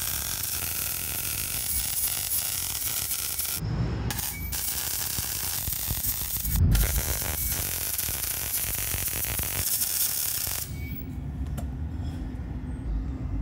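MIG welding arc crackling and hissing as weld beads are laid on steel plate, in three runs of a few seconds with short breaks between. The arc stops about ten and a half seconds in, leaving a low hum.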